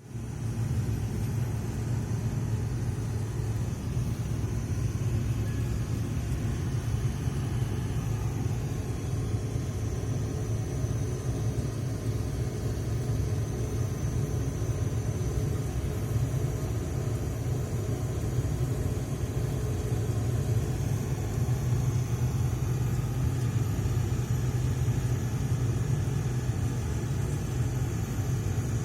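Road-repair machinery engines running, a steady low rumble that keeps on without a break.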